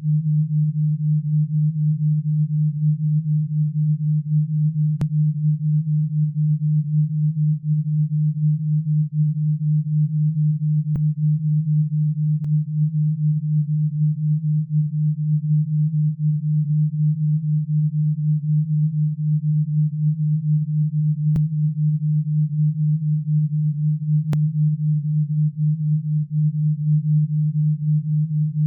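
A steady, low, pure electronic tone with a slight fast wavering in loudness: an alpha-wave brainwave-entrainment tone (8–12 Hz) played as tinnitus sound therapy.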